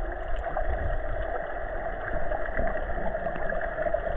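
Muffled underwater ambience picked up by a submerged camera: a steady watery hiss and low rumble, with a few faint clicks.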